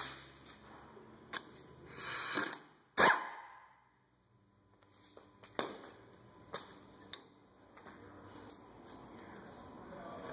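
Pneumatic impact wrench fired in a short burst on the brake line's banjo bolt about two seconds in, followed by a single sharp, loud knock, then a few light metal clicks as the loosened bolt and fitting are handled.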